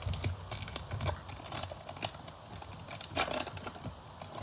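Trading-card pack wrapper crinkling and tearing as it is opened by hand: a scatter of small crackles, with a louder rustle about three seconds in.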